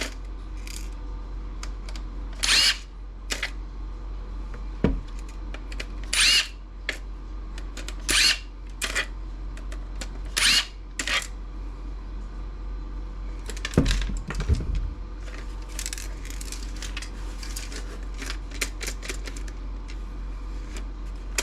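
Cordless power screwdriver running in short bursts, each with a brief whine, backing screws out of a plastic laptop docking station. About halfway through there is a thump, then a run of small plastic clicks and rattles as parts are handled.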